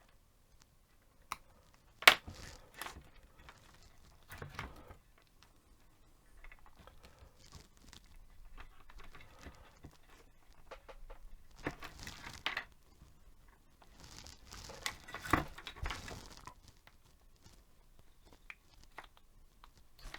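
Handling noises from work on a small headphone plug and cable: several sharp clicks and knocks, the loudest about two seconds in and another near fifteen seconds, with rustling and crinkling between.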